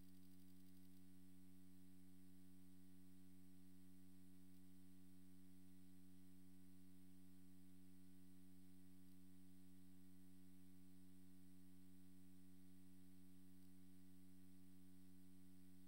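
Near silence with a steady low electrical hum, typical of mains hum in an audio system.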